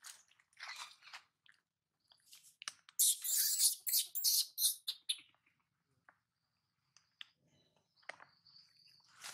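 Dry leaf litter crackling and rustling in short bursts, loudest a few seconds in, as a macaque handles and shifts on the leaves. Faint high chirps near the end.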